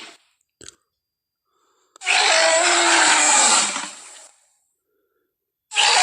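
Tyrannosaurus rex roar sound effect, twice: a loud, harsh roar starts suddenly about two seconds in and trails off after about two seconds, and a second roar begins near the end.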